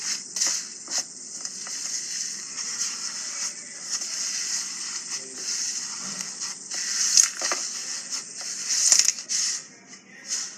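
Slime being squished and pressed by hand: a steady, high crackling full of small sharp clicks and pops, with two louder pops in the second half.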